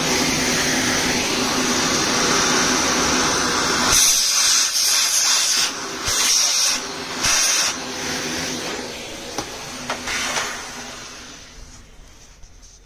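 Vacuum cleaner running with its hose nozzle at the exhaust port of a two-stroke engine's cylinder, sucking out the scraped-off deposits. The rush of air surges and dips several times in the middle as the nozzle moves over the port. It then dies away near the end.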